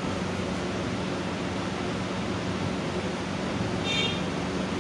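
Steady hiss of background room noise with a low steady hum, like a running fan or air conditioner. A brief high-pitched tone sounds about four seconds in.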